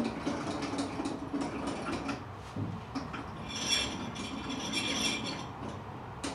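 Rope-and-pulley hoist hauling a canoe up to the rafters: rope running through the pulleys with a string of small clicks and creaks, and a high squeaking for a couple of seconds starting about three and a half seconds in.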